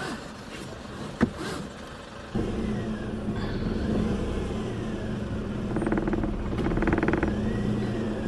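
A sharp click, then a car engine starts about two seconds later and keeps running with a steady low hum.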